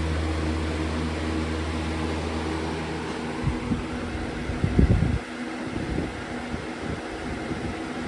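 Lasko box fan running on high: a steady hum with a fixed drone. About three and a half seconds in, the deep hum gives way to irregular low rumbling, loudest just before five seconds in, as the fan's air buffets the microphone.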